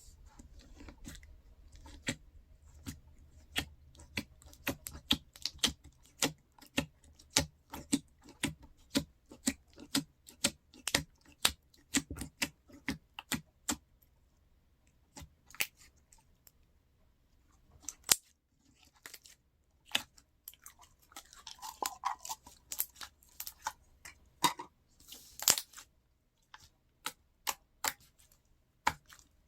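Slime being poked, pressed and stretched by hand, making a run of sharp pops and clicks, several a second, with a short lull around the middle and a denser cluster of crackling pops later on.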